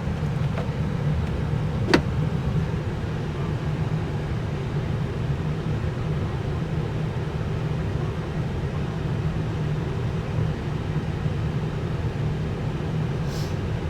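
Steady low hum in the cockpit of a parked Airbus A319, with a single sharp click about two seconds in.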